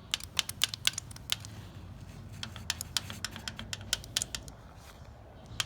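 Sharp, irregular clicks and taps of tools working on the Ford 6600 diesel's rocker arms and push rods during a valve-clearance adjustment, over a low steady hum. The clicks come quickly in the first second or so, then thin out.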